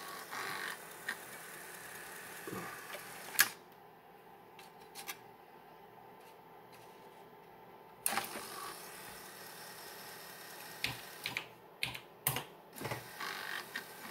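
Opened floppy disk drive with a bare, unjacketed disk mounted, its head clicking and knocking in scattered bursts as it tries to read the disk. There is a sharp click about three seconds in and another near the middle, then a quick run of clicks near the end. The disk is sitting slightly misaligned on the hub, so the read fails.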